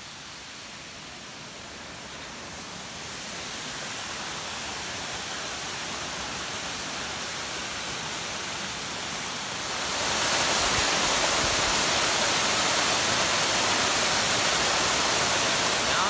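Steady rush of a waterfall plunging into a rock pool. It grows louder over the first few seconds and jumps louder about ten seconds in.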